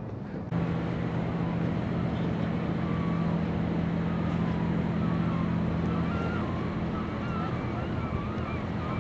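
A small tugboat's diesel engine running with a steady low hum as it motors past. The sound comes in suddenly about half a second in.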